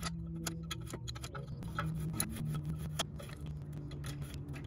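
Open-end wrench clicking and scraping against a rear brake-line fitting on a brake caliper as the fitting is worked loose: scattered light metal clicks, a few a second.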